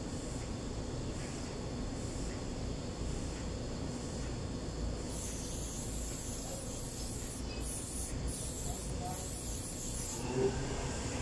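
Aerosol spray can hissing as a hydraulic pump part is sprayed. The spray starts about halfway through, runs for about five seconds with three brief breaks, then stops. A steady low background rumble runs underneath.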